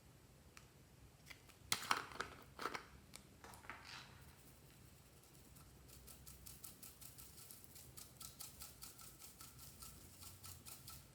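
Slime being squished and folded by hand: a few louder squelching crackles about two seconds in, then a long run of quick small pops and clicks, several a second.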